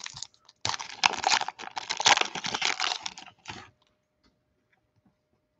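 Foil trading-card pack wrapper being torn open and crinkled by hand: a dense crackling for about three seconds, which then stops.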